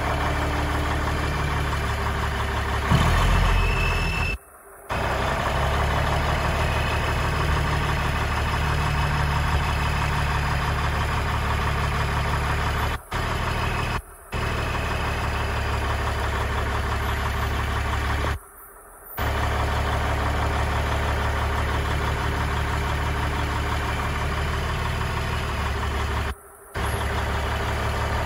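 Diesel engine of a 1995 Kenworth T800 dump truck running steadily at idle while the hydraulic hoist raises and lowers the dump bed. A louder burst comes about three seconds in, and the sound drops out briefly several times.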